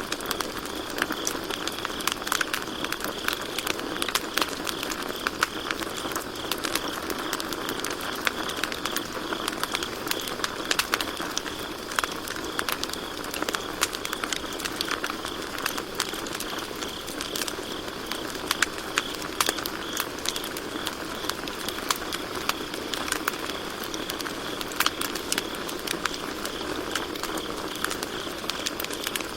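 Campfire crackling, with many small sharp snaps and pops scattered throughout, over a steady high-pitched trill of crickets chirping.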